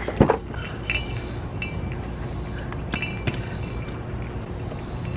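Several light clinks of small hard objects knocking together, over the steady low rumble of a car interior.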